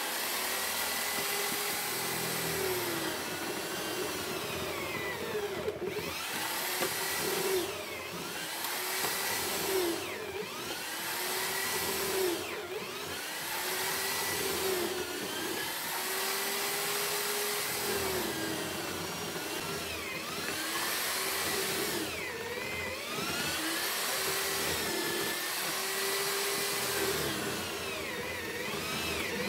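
Handheld electric drill mounted in a homemade lever-operated mortising jig, boring a row of holes into timber to cut a mortise. The motor whine dips in pitch each time the bit is plunged into the wood and picks back up as it is lifted, repeating about every two to three seconds.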